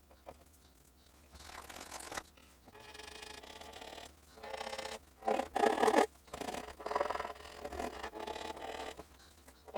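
Irregular scratching and scraping from small hand work on a model, in a string of short uneven strokes. The loudest come about five to six seconds in.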